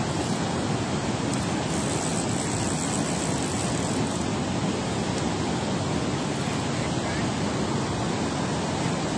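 Steady rushing of water pouring through a dam spillway, a constant even roar with no breaks.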